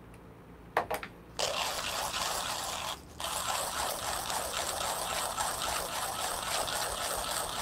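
Two short clicks about a second in, then a Millwright hand coffee grinder being cranked, its burrs crushing espresso beans in a steady, gritty grind with a brief break near 3 s.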